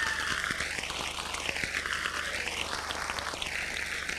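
A steady rushing hiss that sweeps up and down in pitch about every two seconds, a flanger-like whoosh.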